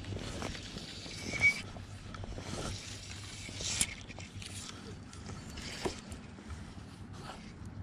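Knocks and rustles of fishing gear being handled in an inflatable boat, over steady wind and water noise on the microphone. A sharp knock with a brief high chirp comes about one and a half seconds in, and more knocks follow at intervals.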